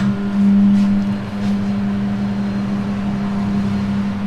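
Electric motor of a tyre-changing machine switched on with a click, then running with a steady hum as it turns a motorcycle wheel clamped on the turntable. The hum is loudest in the first second, then settles a little.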